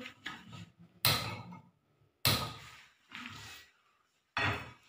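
Several separate sharp knocks and clunks of a frying pan and metal utensil against a gas stove while a burner is being lit, each dying away quickly.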